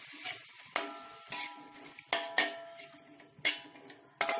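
A metal spatula knocks and scrapes against a metal wok during stir-frying: about six sharp clacks at uneven intervals, each leaving the wok ringing on the same few tones.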